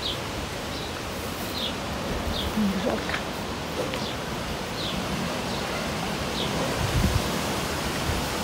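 Wind buffeting the microphone and rustling the garden foliage, with a bird repeating short high chirps every second or so.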